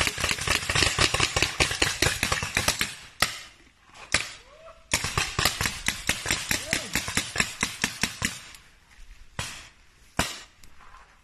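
Several paintball markers firing rapidly at once: a long burst of fast shots, a short pause with a lone shot, a second long burst, then a few scattered single shots near the end.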